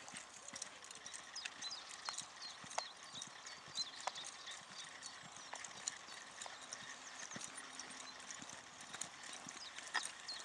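A horse's hooves beating on a sand arena surface as it trots and lopes under a rider, with high chirping in the background.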